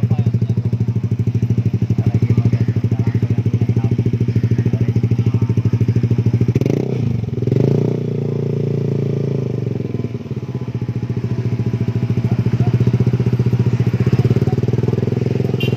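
Yamaha NMAX 155 scooter's single-cylinder four-stroke engine idling through an aftermarket F2Racing exhaust, with a fast, even pulse. The throttle is blipped briefly around the middle, then the engine settles back to idle.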